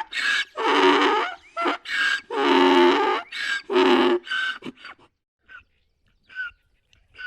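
Donkey braying: a run of loud hee-haw calls, long drawn-out notes alternating with short ones, which dies away about five seconds in, leaving a few faint short sounds.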